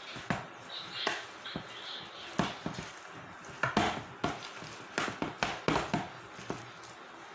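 A utensil knocking and scraping irregularly against a bowl as mashed potato is mixed, with several sharp taps in the middle seconds.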